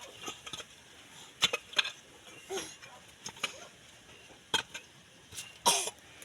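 Scattered sharp knocks, five or so at uneven spacing, with a brief faint voice sound between them.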